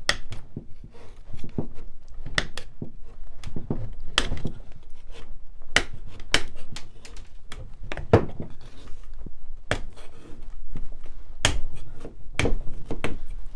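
Metal putty knife prying small upholstery tacks loose from a wooden chair seat rail: a string of irregular sharp clicks and taps, about one every half second to second.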